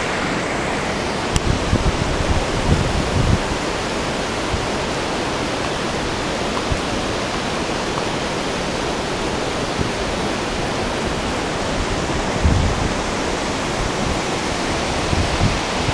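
Mountain waterfall: a steady, even rush of falling water, with a couple of brief low bumps.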